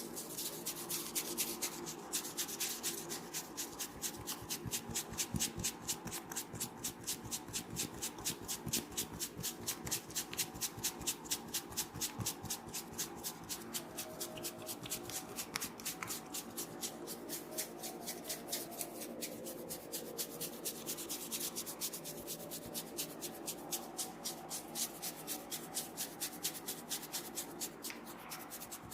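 Hands rubbing a head during a massage, in quick, even strokes that repeat steadily.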